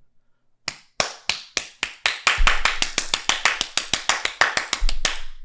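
Hands clapping loudly: a few spaced claps that speed up into a fast run of claps, about six a second, then stop abruptly near the end.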